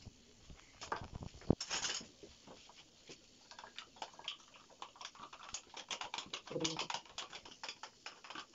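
Irregular light clicks and scrapes of a spoon scooping yogurt out of a plastic yogurt pot into a mixing bowl, tapping against the pot and the bowl rim.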